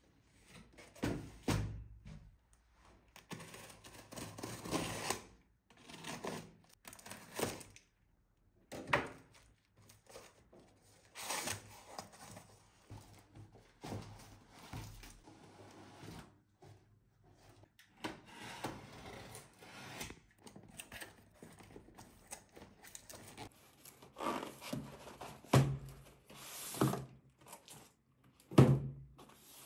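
Irregular handling noises: dull knocks and thuds with stretches of rubbing and scraping between them, as objects are moved and set down on a hard surface. The loudest thumps come in a cluster near the end.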